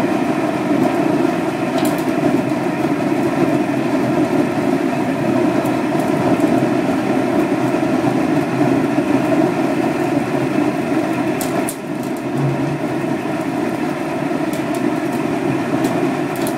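Sawdust burner firing, its flame jet blasting from the nozzle: a steady, loud rushing noise that dips briefly once, about twelve seconds in.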